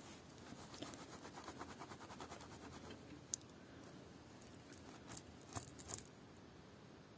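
Faint rustling of a cotton cloth as a small metal filigree pendant is rubbed dry in it, in quick rubbing strokes for the first few seconds. A sharp click a little before midway and a few light metallic clicks and jingles a second or two before the end come from the metal piece and its dangling beads being handled.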